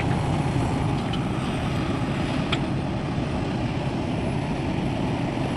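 Heavy diesel engine of construction machinery running steadily with a low drone, with a single sharp click about two and a half seconds in.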